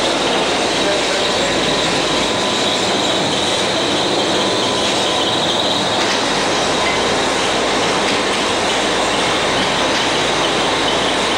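Rotary PET bottle filling machine running: a loud, steady mechanical clatter and hiss with a faint steady whine through it.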